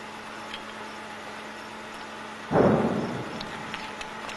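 Close thunder about two and a half seconds in: a sudden loud clap that fades into rumbling over about a second.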